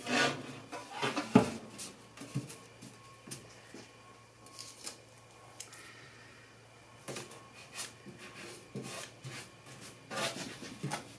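Handling noises as a template is fitted around a sheet-metal stovepipe: rustling with scattered light clicks and knocks. The sharpest knock comes about a second and a half in, and the rustling picks up again near the end.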